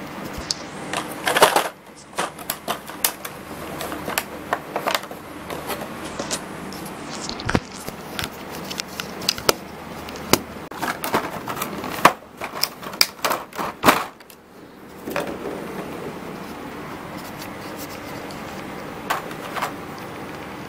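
Hands handling a plastic packaging tray and grooming-kit parts: irregular clicks, taps and rattles, with a few louder knocks, thinning out in the last few seconds.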